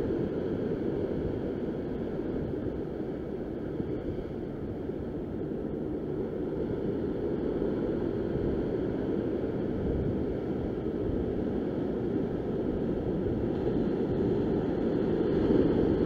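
Steady rush of wind on the microphone mixed with ocean swell washing and breaking over the shore rocks.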